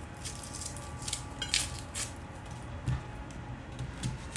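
An onion being peeled with a knife: a few short crackles of dry onion skin and light knocks of the knife, over a steady low hum.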